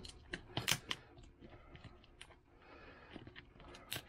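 Dull scissors snipping and chewing at the packing banding strapped around a box: scattered sharp clicks and crunches, the loudest about three-quarters of a second in and another near the end.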